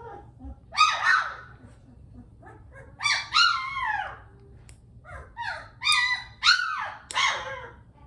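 Three-week-old Bernese Mountain Dog puppy crying in loud, high squeals that fall in pitch, coming in clusters of two to four, protesting being held for nail clipping.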